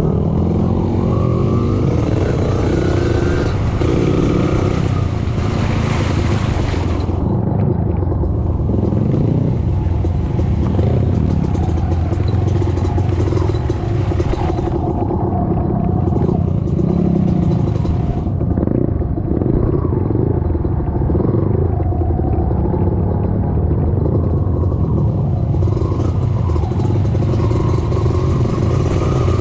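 Trail motorcycle engine running under way off-road, its revs rising and falling, with a hiss that comes and goes.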